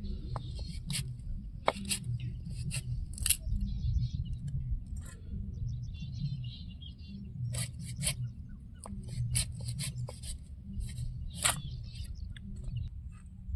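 Small knife cutting and peeling an unripe green mango held in the hand: irregular crisp cuts and clicks, about one or two a second, over a low steady rumble.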